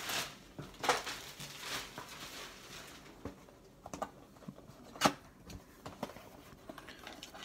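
Cardboard trading-card box being handled and opened by hand: scattered rustling and scraping with a few sharp clicks, the loudest about five seconds in.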